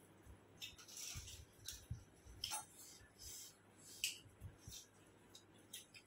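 Quiet eating sounds: wet chewing and lip-smacking clicks, about one every half second to second, with fingers squishing and mixing rice on a plate.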